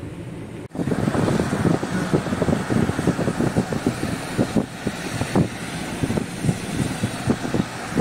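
A moving car's quiet cabin hum that cuts off abruptly less than a second in. Then the car's road noise, with wind gusting irregularly against the microphone, as if through an open side window.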